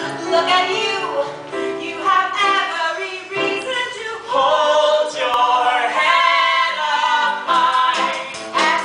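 Voices singing a stage musical number with instrumental accompaniment.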